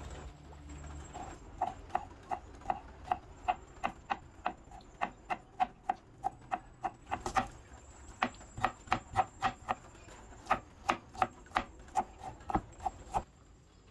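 Kitchen knife chopping garlic and shallots on a cutting board: a steady run of sharp knocks, about three a second, with a short break about halfway through and stopping near the end.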